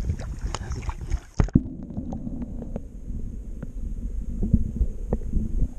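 Camera dipped under river water: a little splashing and handling knocks, then, about a second and a half in, the sound goes suddenly muffled. From there on only a low underwater rumble and gurgle is heard, with scattered faint clicks.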